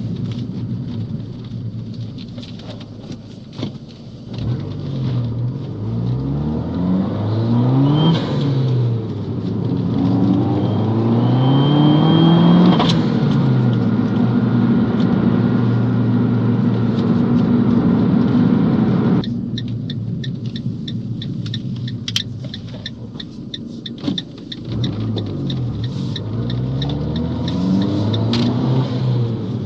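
Fiat 500 Abarth's turbocharged 1.4-litre four-cylinder engine accelerating through the gears, its pitch climbing and falling back at each shift, with a thin high turbo whistle just before the shift about 13 seconds in. It then runs steadily, drops off suddenly at about 19 seconds, and climbs again near the end.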